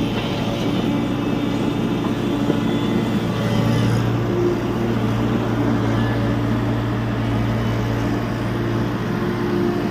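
Diesel engine of a TATA Hitachi EX70 Super Plus excavator running steadily under work, a deep hum that grows a little louder about three and a half seconds in.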